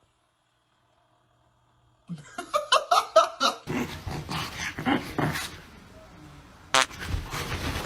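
A dog whining and yipping in a quick run of short, high calls that starts about two seconds in, followed by a noisier stretch with more whines and a brief sharp squeak near the end.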